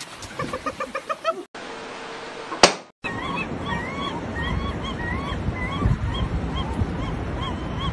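Gulls calling, a string of short repeated calls about two or three a second over a low wind rumble on the microphone, starting about three seconds in. Before that come a quick run of rapid voice-like pulses and one sharp click.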